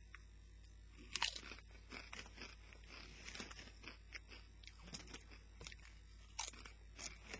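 A person biting and chewing Doritos tortilla chips close to the microphone: a run of short, crisp crunches, sharpest about a second in and again near the end as another chip is bitten.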